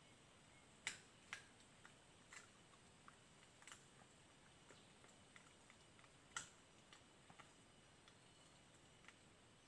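Near silence, broken by faint scattered clicks and snaps, the two clearest about a second in and about six and a half seconds in.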